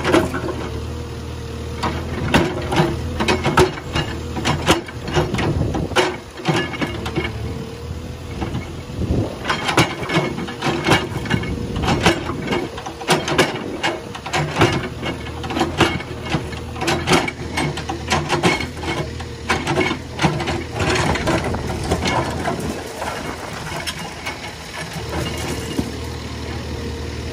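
CASE backhoe loader's diesel engine running steadily, with many sharp clanks and knocks from the machine working.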